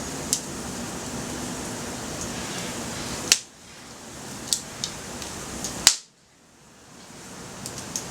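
Wood fire burning in a small fire stand: a steady hiss with sharp pops and crackles, two of them loud, about three and six seconds in. The fuel is slightly damp firewood and branches.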